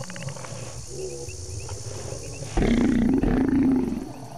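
A Stegosaurus gives one loud, low, wavering call about two and a half seconds in, lasting over a second, over faint background chirping.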